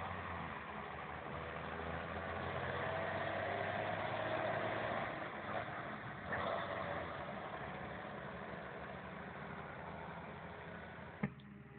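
A John Deere tractor pulling a loaded silage trailer drives past, its engine and rolling noise growing to a peak a few seconds in and then fading as it moves away. A single short click near the end.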